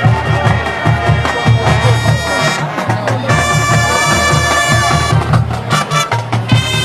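Marching band playing: drums pound a steady beat while the horns play, holding a long loud chord through the middle.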